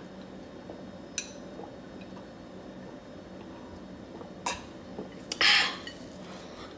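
A person drinking from a glass: quiet sips, two sharp clicks about four and a half and five seconds in, then a short, loud breathy burst.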